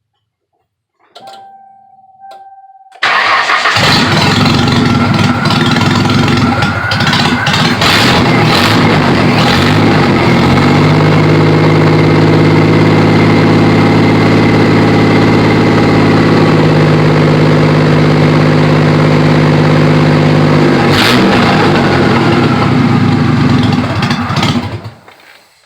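Ford Thunderbird's freshly rebuilt engine starting about three seconds in and running very loud through an exhaust with one catalytic converter cut out, engine speed rising about ten seconds in and dropping back about twenty-one seconds in, then shut off near the end. A faint steady tone sounds just before it starts.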